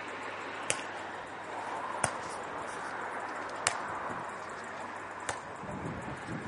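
Beach volleyball being struck by players' hands and forearms during a rally: four sharp smacks, roughly a second and a half apart, over steady background noise.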